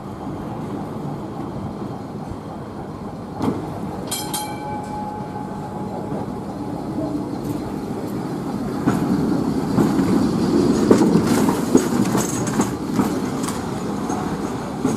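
Double-deck electric heritage tram No. 70 running along street track toward and past, its steel wheels clicking over rail joints and points and growing louder as it draws near. A single ringing strike sounds about four seconds in.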